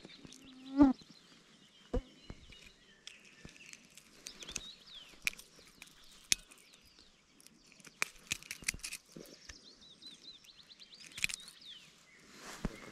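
Songbirds singing in the background, short high chirps that come and go, with scattered sharp clicks and knocks. About a second in there is one brief, loud, low sound with a pitch, the loudest thing heard.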